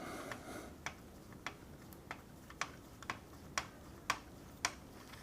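Hand driver turning an M3x10 screw into the plastic wing mount, a sharp click about twice a second as it is turned. The hole was not tapped deep enough, so the screw is cutting its way into the plastic against resistance.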